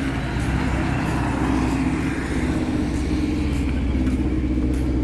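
Street traffic: a motor vehicle's engine running with a steady low hum, over road noise.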